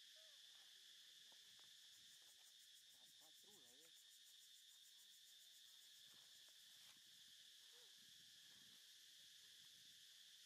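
Near silence, with a faint, steady chorus of crickets or similar insects. A few faint wavering calls rise and fall in the background about three seconds in and again near the end.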